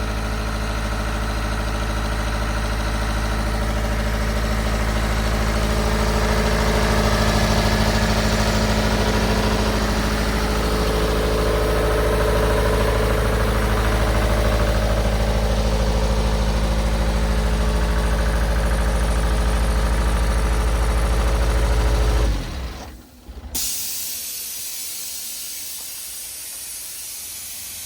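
323A Atlas portable air compressor running steadily, then shutting down about 22 seconds in. A second later a sudden hiss of escaping air starts and slowly fades: the compressor blowing down its stored air pressure after shutdown.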